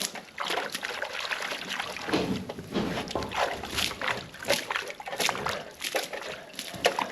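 Water sloshing and splashing in irregular bursts in an animal water bowl that had been fouled with droppings and is being emptied and cleaned.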